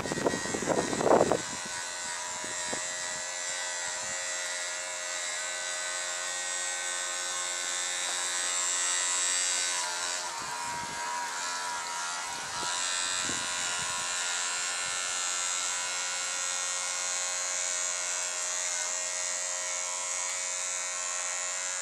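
Battery-powered oscillating electric toothbrush buzzing steadily as it flaps a plastic paddle to drive a small toy boat, with wind hiss on the microphone. A few knocks and splashes in the first second as the boat is set on the water.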